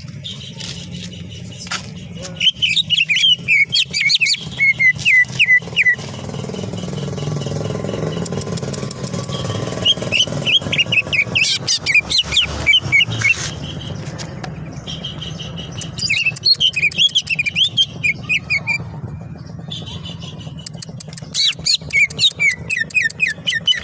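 Green leafbird (cucak ijo) singing in repeated bursts of rapid, high chirping phrases, over a steady low hum. A broad rumbling noise swells up in the middle.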